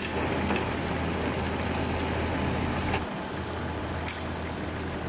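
Pot of chicken, potatoes and carrots simmering in broth: a steady bubbling noise with a low hum underneath and a few faint clicks.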